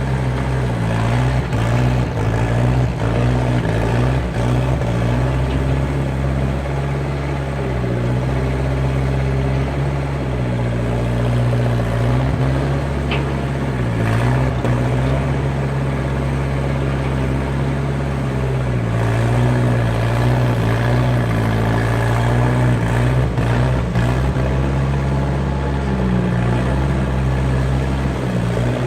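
Skid steer engine running steadily at working revs, its note dipping briefly several times.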